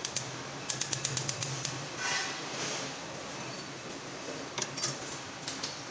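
A quick run of about eight sharp mechanical clicks about a second in, and a few more clicks near the end, over a steady low hum.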